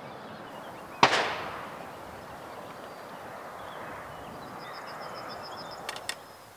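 A single shotgun shot about a second in, its echo dying away over a couple of seconds. Then a steady outdoor hush with a bird trilling, and two sharp clicks shortly before the end.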